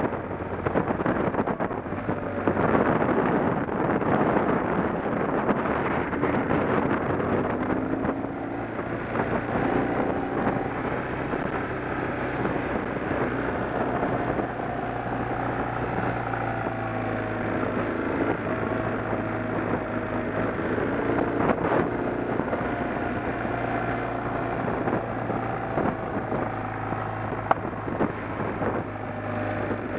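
An engine running steadily, with wind noise on the microphone.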